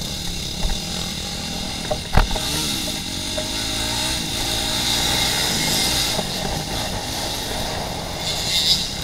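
Off-road dirt bike engine revving up and down on a rough trail, heard close up from the rider's own bike, with a sharp knock about two seconds in.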